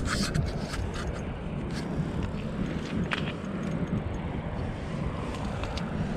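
Steady low wind noise on the microphone, broken by a scattering of short sharp clicks and ticks from a spinning reel and rod being handled while a smallmouth bass is played up through an ice-fishing hole.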